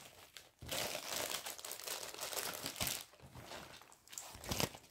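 Clear plastic bag crinkling and rustling as it is handled, with a few sharper crackles near the end.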